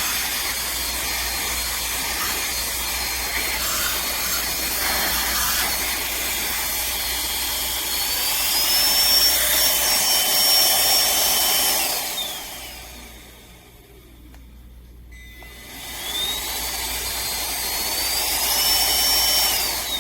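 Aspiron cordless handheld vacuum running with a high motor whine. It steps up to its higher-power mode about eight seconds in, winds down and stops around twelve seconds, then starts again a few seconds later, steps up once more and winds down at the end.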